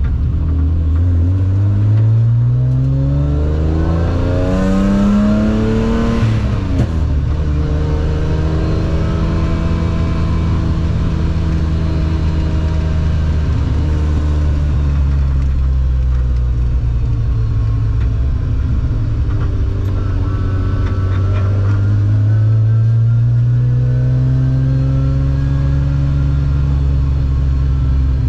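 BMW Compact M3 rally car's engine pulling hard under acceleration, heard from inside the car: the revs climb steeply, drop at an upshift about six seconds in, hold high, ease off, then climb again near the end.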